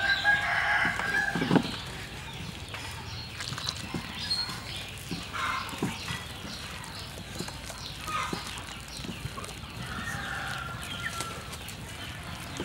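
Hands squishing and pressing flour, egg and liquid into a sticky batter in a stainless steel bowl, with soft scattered clicks. A pitched animal call about a second and a half long at the very start is the loudest sound, and a few shorter calls come later.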